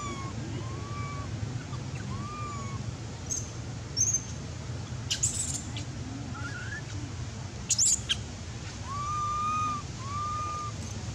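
Baby monkey crying with repeated short, arching whimper calls, a longer drawn-out one near the end, and a few sharp high squeals in the middle; the crying of a hungry infant wanting milk.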